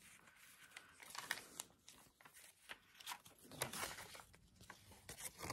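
Faint, irregular rustling of paper pages being turned and handled in a handmade junk journal.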